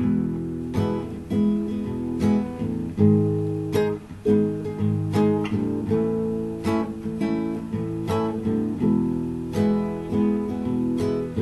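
Acoustic guitar strummed in chords, a steady rhythm of strokes: the instrumental intro of a song, before the voice comes in.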